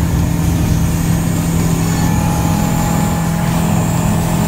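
Single-engine light aircraft's piston engine and propeller at takeoff power during the takeoff roll, heard from inside the cockpit as a loud, steady drone.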